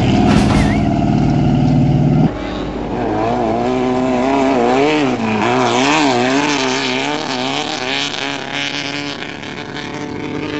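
Off-road race vehicle engines running loud: one steady engine note that cuts off abruptly about two seconds in, then another engine revving with its pitch swinging up and down over and over.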